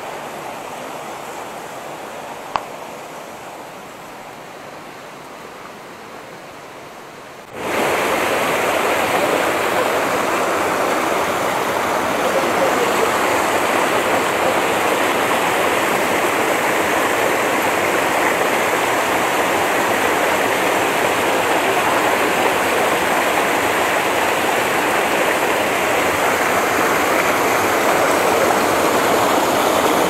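Rushing stream water: a steady hiss of flowing water, fainter at first with a single click a couple of seconds in, then suddenly much louder about seven and a half seconds in and staying loud.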